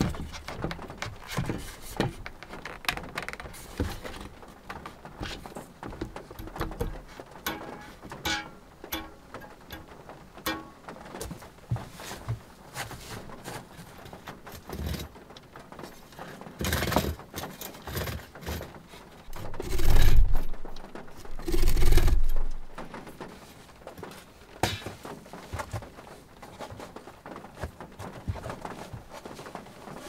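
Wooden knocks and clatter of boards and tools being handled on a plank floor, with two heavy thuds about two seconds apart around two-thirds of the way in.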